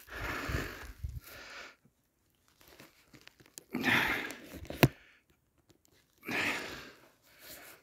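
Slow footsteps crunching through crusted snow, three heavy steps a couple of seconds apart, with a sharp click just before the third.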